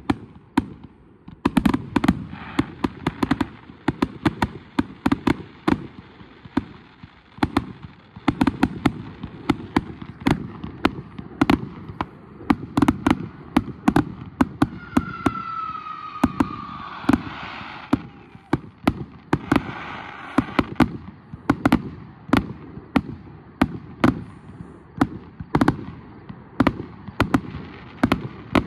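Aerial firework shells launching and bursting in quick succession, a steady run of sharp bangs and deep booms. About halfway through, a falling whistle is heard.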